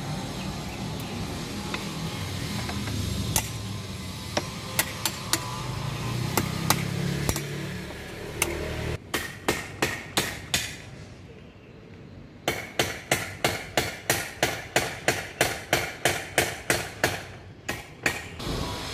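Hammer striking metal, fixing a fence post's bolt: a few scattered taps over a steady low rumble, then from about halfway two runs of quick, regular blows, about three to four a second.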